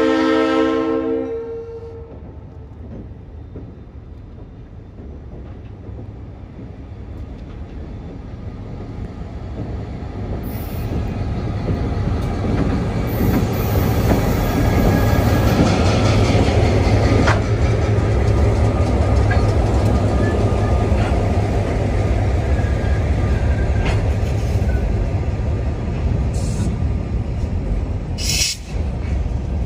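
Freight train passing close by. The diesel locomotive's multi-tone horn chord cuts off about a second in; then the locomotives' engine rumble builds and passes close, loudest midway, followed by freight cars rolling by with wheel noise and brief high squeals.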